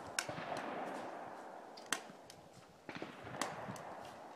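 Scattered gunshots from other shooters on the range: three sharp, faint cracks, the loudest about two seconds in, over a quiet outdoor hush.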